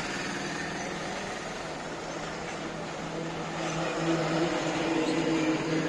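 Forklift running with a steady engine hum that grows louder about two-thirds of the way through.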